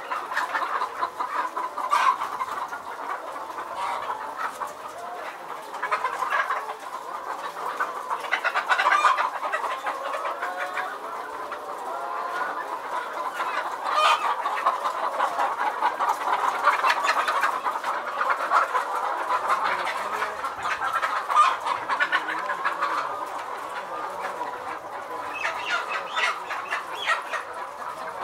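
A large flock of caged hens clucking all at once, a continuous dense chatter of many birds, with louder single calls rising out of it now and then.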